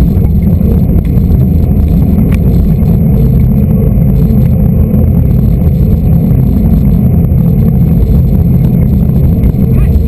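Steady low buffeting of wind and road rumble on a bicycle-mounted camera's microphone as the bike rolls along asphalt.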